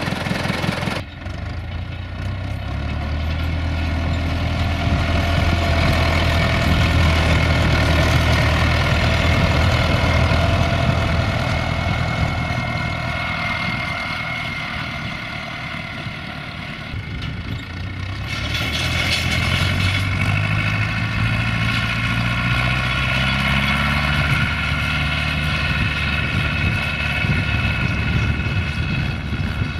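International 844S tractor's diesel engine running steadily as the tractor works a field, its sound changing abruptly about a second in and again just past halfway. It gets louder, fades towards the middle, then holds steady again.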